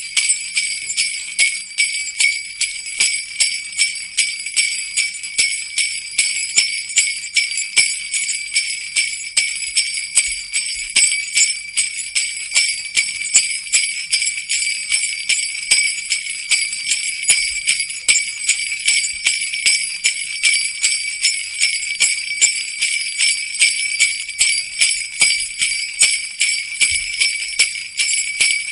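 Sleigh bells (jingle bells) shaken in a steady, even rhythm, jingling continuously.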